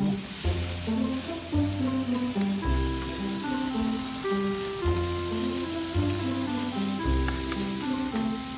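Background music with a melody and a repeating bass line, over the steady sizzle of pork ribs cooking on a grill.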